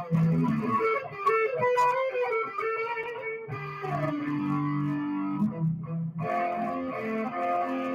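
Electric guitar played live through an amplifier: a run of held notes, some sliding in pitch, with few sharp strikes.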